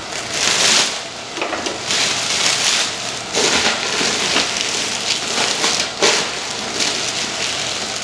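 Thin plastic slow cooker liner crinkling and rustling as it is worked into a crock pot, in several irregular bursts.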